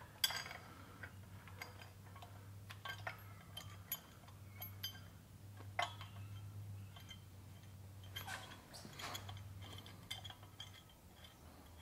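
Faint, irregular metal clicks and clinks of bolts, washers and a wrench against the steel mounting head of an engine stand as it is bolted to a small-block Chevy, over a low steady hum.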